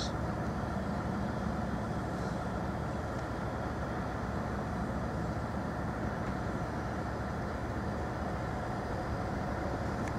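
A pair of Class 387 Electrostar electric multiple units running slowly into the platform, making a steady low running noise of wheels on rail and traction equipment.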